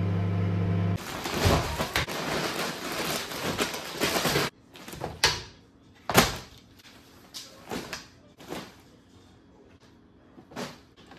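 A held musical tone ends about a second in. Then comes a few seconds of dense crinkling of plastic snack bags and packaging as they are heaped onto a table, followed by about six separate rustles and soft thumps as more items and puffy winter coats are dropped onto the pile.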